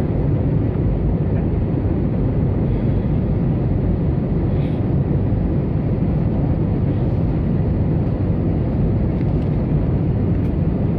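Airbus A320 passenger cabin in flight: the steady low rumble of jet engines and rushing airflow, unchanging throughout.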